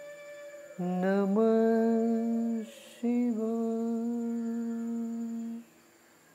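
Slow meditative humming in long held notes, each sliding up into its pitch. A note starts about a second in, breaks off briefly near the middle, resumes and stops shortly before the end.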